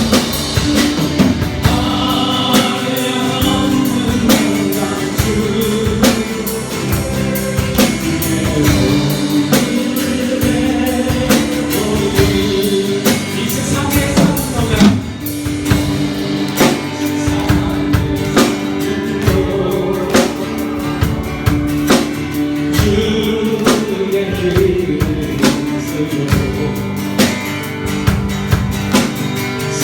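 Praise song performed live: singing over a band with a steady drum beat and guitar.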